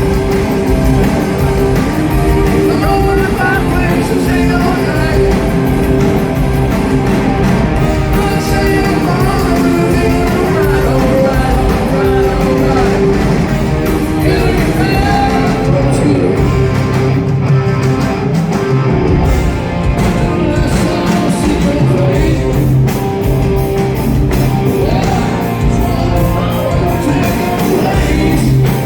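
Live rock band playing loudly, with a lead singer's vocals over guitars, bass and drums.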